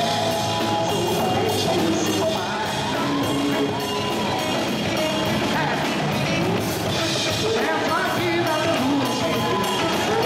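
Live band playing samba-rock (sambalanço): drum kit, congas and electric guitar keep a steady beat under a male singer.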